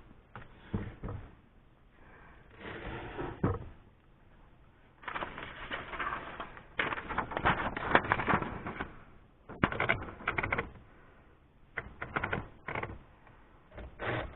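Remington Noiseless No. 6 manual typewriter being test-typed: bursts of key strokes and mechanism clicks with short pauses, and a fast run of strokes in the middle. The typing tests a freshly adjusted draw band and escapement spring meant to stop the carriage skipping.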